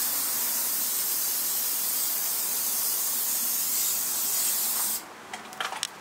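Aerosol can of hydro-dip film activator spraying in one continuous hiss over the film floating on the water, cutting off suddenly about five seconds in; a few clicks follow.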